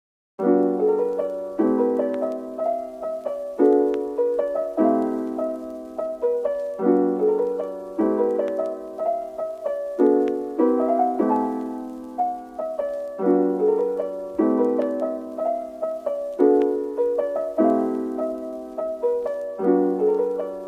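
Piano background music, chords struck every second or two and left to ring, starting abruptly just after the beginning.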